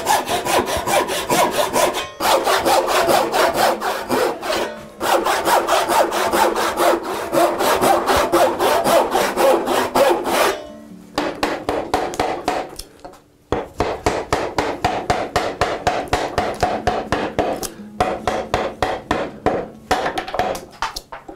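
Hand saws cutting a block of white oak held in a vise, with rapid back-and-forth rasping strokes. The sawing stops briefly about ten and thirteen seconds in, then resumes in steadier, evenly spaced strokes.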